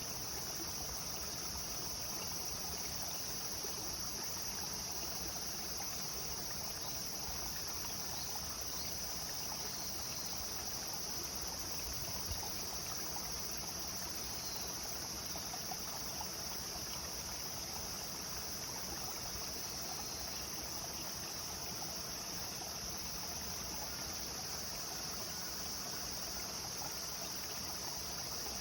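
A clear river flowing steadily, with a continuous high-pitched drone of insects over it.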